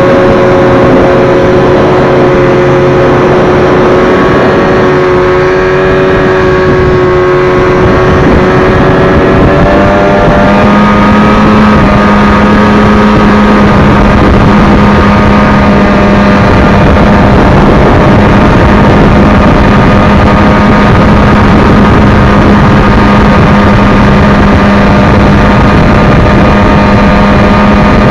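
Arctic Cat snowmobile engines running steadily at riding speed, heard from on board a sled. About ten seconds in the engine pitch rises and then holds steady.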